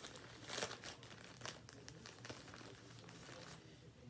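Plastic packaging crinkling as a packet of underwear is handled and opened, in irregular rustles, the loudest about half a second and a second and a half in, dying away near the end.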